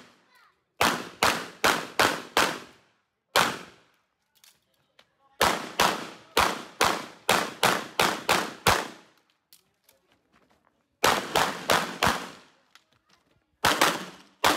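Semi-automatic pistol fired in rapid strings of shots, two or three a second, with short pauses between strings; each report cracks sharply and rings off briefly. The longest string, about nine shots, comes mid-way.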